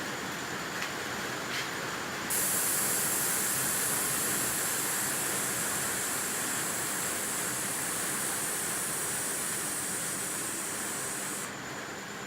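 Air ride suspension letting air out: a loud, steady hiss of compressed air venting from the airbags that starts suddenly about two seconds in and cuts off sharply near the end, as the motorcycle is lowered. Two small clicks come just before it.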